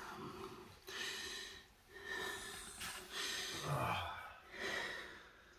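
A person breathing loudly close to the microphone, breaths in quick succession about one a second.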